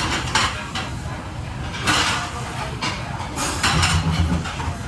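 Plates, pans and metal utensils clattering and scraping during plating, in several short bursts over a steady low hum.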